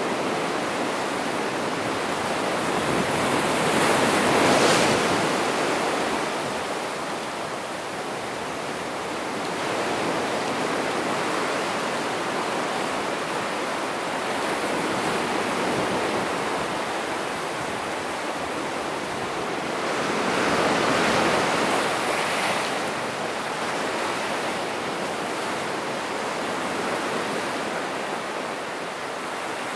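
Ocean surf washing over rocks along the shore, a steady rushing of water with two louder surges of breaking waves, one about four seconds in and one past the twenty-second mark.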